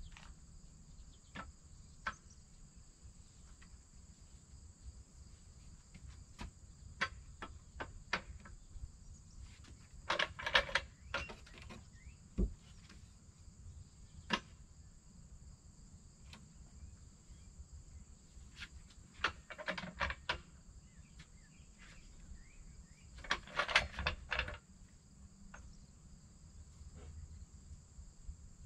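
A wooden porch post knocking and scraping as it is stood up and worked into place under the porch roof beam: scattered single knocks, with short clusters of knocking about ten seconds in, about twenty and about twenty-four. Behind it, a steady high chorus of insects.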